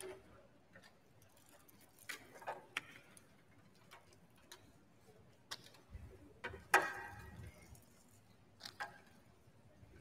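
A pause with no music: scattered faint clicks and taps from woodwind players handling their instruments, the sharpest just under seven seconds in. A faint low rumble comes in from about six seconds in.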